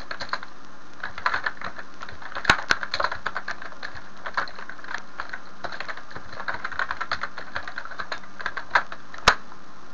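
Typing on a computer keyboard: quick runs of keystrokes with short pauses, and two sharper, louder clicks, one about two and a half seconds in and one near the end.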